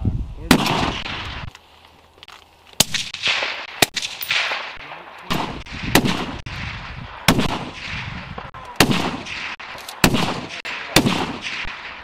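Sniper rifles, among them the .50-calibre M107, firing single shots in turn: about ten sharp cracks at uneven intervals, each trailing off in a long echo.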